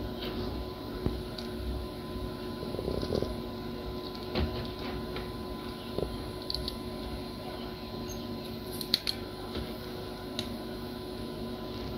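Light clicks and taps from handling a small circuit board and a soldering iron during desoldering work, scattered through, with a sharper click about nine seconds in, over a steady faint hum.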